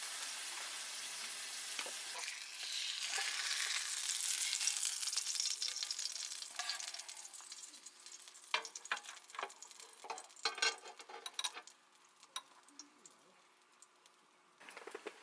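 Food sizzling in a hot pan, loudest a few seconds in and dying down after about eight seconds. After that come a string of sharp clicks and taps of a utensil against the pan.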